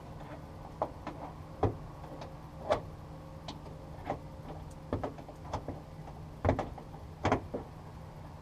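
Irregular knocks and clicks, about a dozen scattered through, over a steady low hum.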